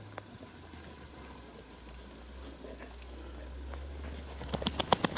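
Faint rustling and a few light clicks, then close rapid panting from a dog, an even run of quick breaths at about eight a second that starts near the end and grows loud.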